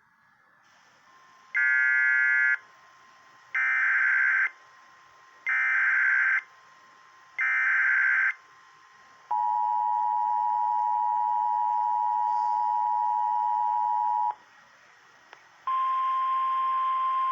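Emergency Alert System activation for a flood warning: four one-second bursts of the SAME digital data header, a warbling electronic screech, then the two-tone EAS attention signal held steady for about five seconds. After a short pause a single steady NOAA Weather Radio alert tone begins.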